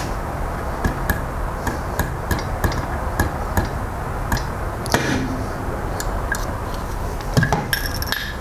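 A hammer striking a metal punch held against the old camshaft seal in its housing to drive the seal out: a run of sharp metallic taps, about three a second, then a few louder strikes and a clink near the end.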